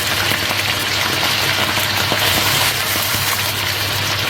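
Marinated chicken giblets and chicken hearts frying in hot oil: a steady, dense sizzle with fine crackling.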